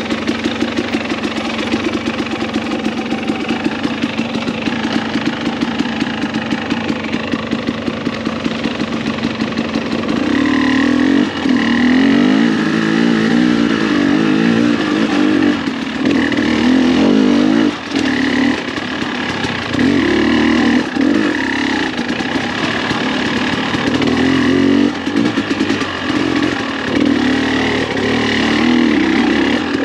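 Dirt bike engine chugging at low revs with a fast, even pulse, then louder under throttle from about a third of the way in, with several brief drops as the throttle is rolled off and back on.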